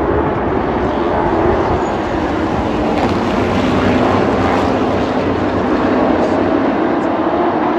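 A field of short-track race trucks racing around an oval under green, their engines making a loud, steady din.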